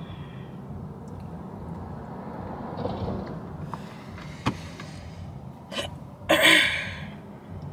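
A person's short, loud throat noise near the end, over a steady low rumble inside a car cabin, with a sharp click about halfway through.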